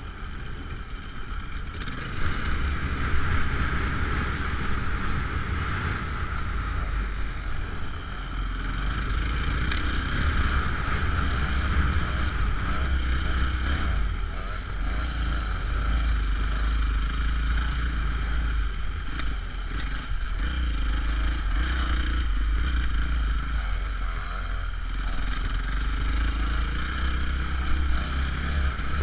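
Dirt bike engine running under way, heard from the rider's own bike along with the bike ahead, getting louder about two seconds in, with wind rushing over the camera microphone.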